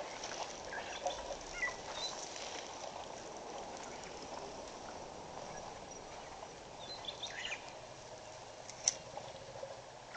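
Outdoor bush ambience: a steady hiss with scattered short bird chirps, a few soft knocks and rustles, and one sharp click about nine seconds in.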